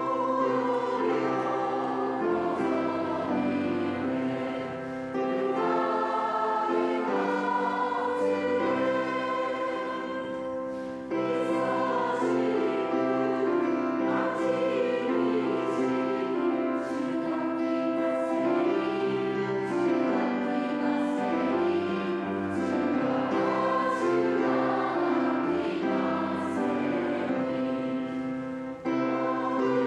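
Choir singing a Christmas hymn in held, sustained notes, with a short break and a fresh phrase entry about eleven seconds in.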